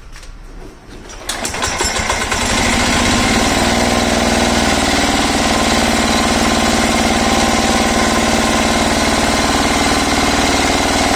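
Single-cylinder KAMA diesel engine of a 9 hp power weeder, pull-started by rope on its manual starting wheel: a few clicks from the pull, then it catches a little over a second in and settles into steady running at idle.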